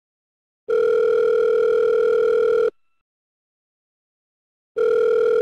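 Telephone ringing: two long rings of about two seconds each, a steady pulsing tone, with the second ring beginning near the end.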